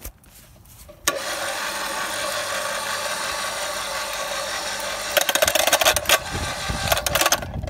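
Mains-powered electric scaffolding winch switching on about a second in and running steadily as it winds its steel cable onto the drum, hauling itself up the scaffold. From about five seconds in, irregular knocking and rattling sounds over the running motor.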